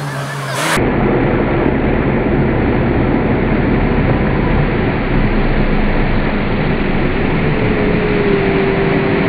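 Off-road jeep's engine running hard, heard as a loud, dense, steady rumble that comes in about a second in.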